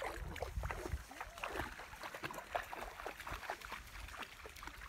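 River water splashing and sloshing in irregular small splashes, with a low rumble in the first second.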